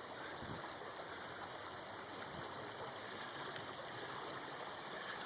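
Creek water flowing steadily, a soft even rush with no change.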